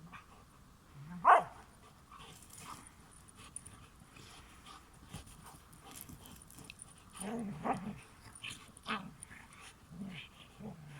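Dogs vocalising: one loud, sharp bark about a second in, then a run of shorter, lower barks and yips from about seven seconds on.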